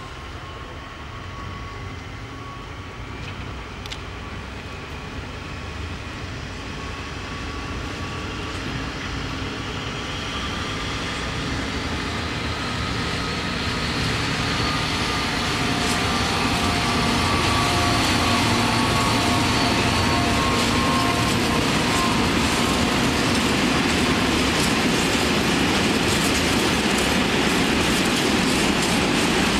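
ACTS 7100-class diesel locomotive and its train of tank wagons rolling past, growing steadily louder over the first half as they draw near. The engine and steel wheels rumble on the track, with thin, wavering wheel squeal.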